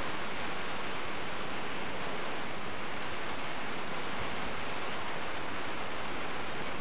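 Steady, even hiss of outdoor noise with no distinct events, like rain or rushing water.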